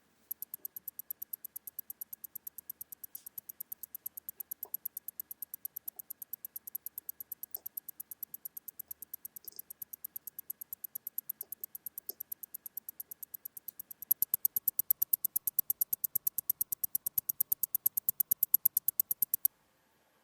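Close-up ticking of a serviced ETA 2892 automatic watch movement's balance and escapement: a rapid, perfectly even run of sharp ticks, several a second. The ticks get louder and fuller about fourteen seconds in and cut off suddenly near the end.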